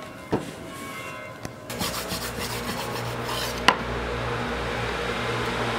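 Hands rubbing and scraping a flat clay slab, cut in a jigsaw-piece shape, against a board. There is a sharp knock about two-thirds of the way through.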